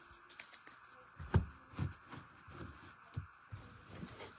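Trading cards being handled and set down: scattered light taps and rustles, with a soft thump about a second and a half in.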